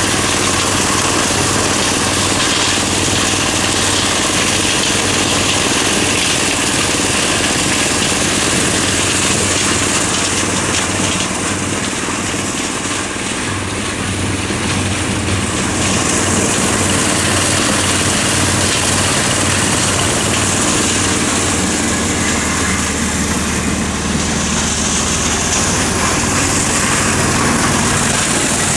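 Engine-driven corn sheller running steadily: a constant engine hum under a dense mechanical noise, easing slightly a little under halfway through.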